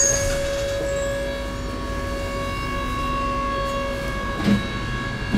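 Inside a tram car: a steady running hum with a level electrical whine from the tram's drive as it moves off after the doors close, and a single knock about four and a half seconds in.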